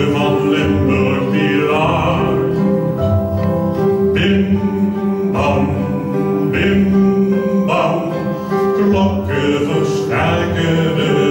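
A man singing with held notes while accompanying himself on a classical guitar.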